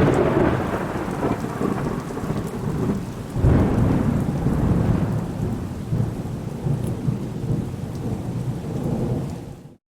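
Thunderstorm: rolling thunder over heavy rain, with a fresh clap of thunder about three and a half seconds in. It cuts off suddenly just before the end.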